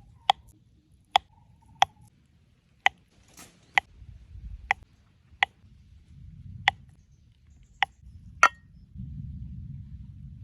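A series of about ten sharp strikes, roughly one a second, each with a brief ringing tone.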